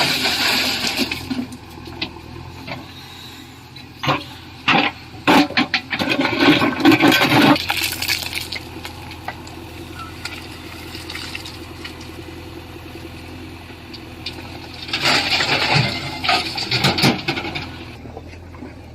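Stones tipped from a backhoe loader's bucket into a tractor trolley, rushing and clattering in three spells: at the start, from about four to eight seconds in, and around fifteen seconds in, over an engine running steadily.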